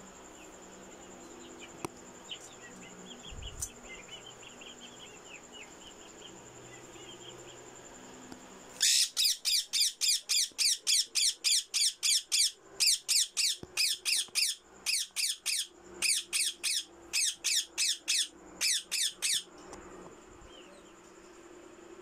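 Caged Alexandrine parakeet calling: a few faint chirps, then a rapid run of loud, shrill calls, about three a second, lasting some ten seconds before stopping abruptly. A steady high insect trill runs underneath.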